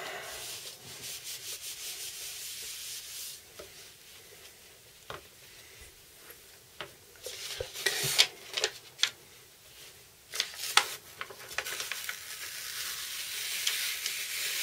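Hands rubbing over heat-transfer paper on a cotton t-shirt, a papery rustle with small crackles, then the cooled transfer paper being peeled off the shirt, the crackling rustle growing louder over the last few seconds.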